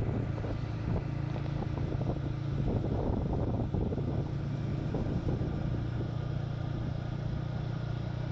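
A vehicle's engine running at a steady speed while travelling along a road, with a constant low hum and rough road and wind noise over it.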